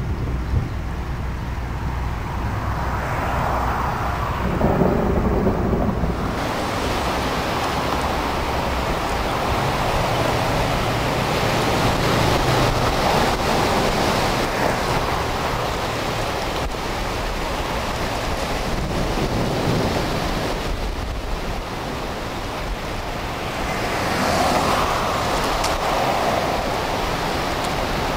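Severe thunderstorm: thunder rumbling low for the first few seconds, then from about six seconds in a steady rush of heavy rain.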